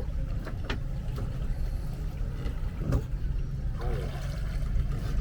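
Engine of a small river-crossing boat running steadily, a low rumble, with a couple of light knocks.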